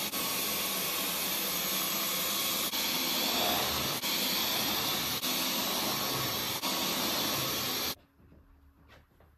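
Cordless stick vacuum running steadily with a loud, even whoosh as its lit floor head is pushed over a wooden floor. It cuts off suddenly near the end, leaving only a few faint rustles.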